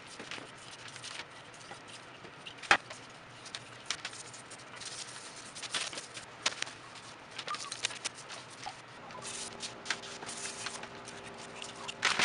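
Scattered clinks, taps and scrapes of greasy metal motor parts being handled and picked at on a workbench as an old electric motor's end bell is taken apart, with one sharp click a few seconds in. A faint steady hum comes in about three-quarters of the way through.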